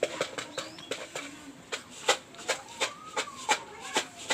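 A quick, irregular series of about fifteen sharp taps or clicks, a few noticeably louder, with a faint tone rising and then falling behind them in the second half.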